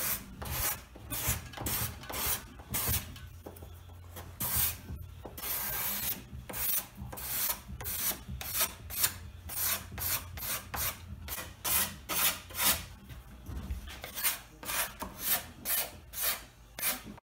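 Steel cabinet scraper drawn in quick repeated strokes over cherry veneer, about two to three strokes a second with a short lull partway through, cleaning up the surface of the wood.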